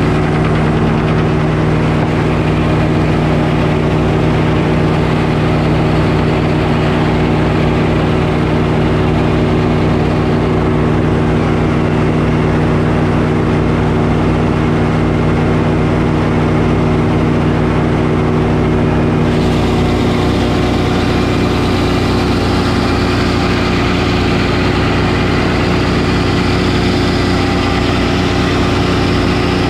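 Frick circular sawmill running steadily: the drone of the engine driving the belts and the spinning blade. About two-thirds of the way in the sound turns hissier as the blade cuts into a poplar board.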